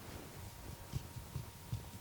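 Soft, muffled thumps of hands percussing on the head or body during an Indian head massage, in a rhythm of about two to three a second.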